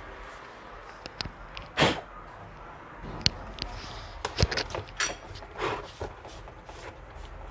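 Clicks and knocks of a small digital pocket scale and its hinged clear plastic lid being handled: lifted, tilted, set back down on the countertop and its buttons pressed. A short rush of noise comes just under two seconds in, and a scatter of sharp clicks follows from about three seconds on.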